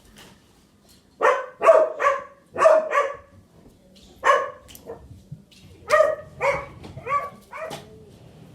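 Pet dogs barking: about eleven sharp barks in irregular runs of two or three, with a gap of a second or so between runs.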